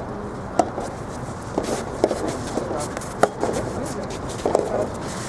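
Soft tennis rubber ball struck by rackets in a doubles rally: a serve about half a second in, then sharp pops of racket hits and ball bounces roughly every second.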